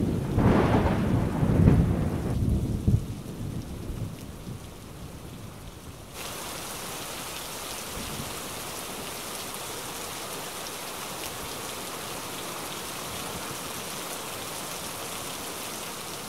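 Thunder rumbling and fading away over the first few seconds, then heavy rain falling steadily, its hiss stepping up suddenly about six seconds in.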